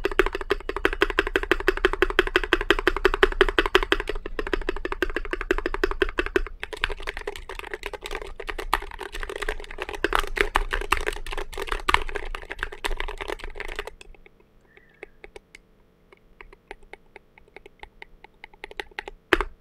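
Fast typing on a mechanical keyboard with Thic Thock Marshmallow linear switches and SA-profile Snow Cap keycaps: a dense, rapid run of keystrokes. About fourteen seconds in it thins to a few scattered, softer key presses, with one louder click near the end.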